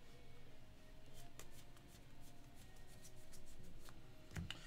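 Faint rustling and a few light ticks of sports trading cards being handled and slid through the hands.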